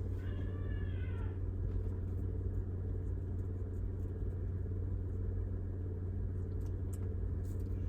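Car engine idling steadily, heard as a constant low hum. About a second in there is a brief high-pitched whine from a voice.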